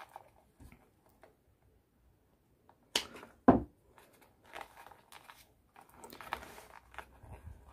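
Damp rolled-paper weaving tubes rustling and scraping against each other and the basket stakes as they are bent and threaded into the border, with faint clicks at first. About three seconds in there is a sharp click, then a louder knock half a second later.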